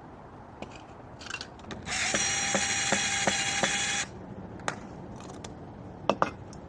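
A small power tool runs for about two seconds with a steady whine and evenly spaced ticks, among a few short knocks and clicks.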